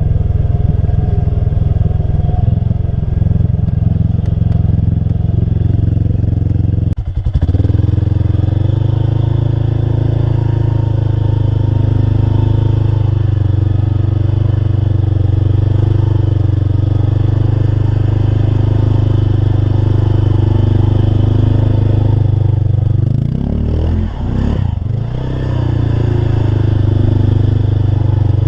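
Loud engine of a mud-racing vehicle running hard and steadily, with a brief dip about seven seconds in and the pitch wavering up and down briefly near the end.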